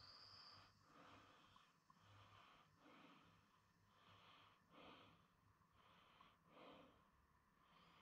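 Faint sounds of a person walking: a soft rustle that comes back about once a second, with a short high note at the very start.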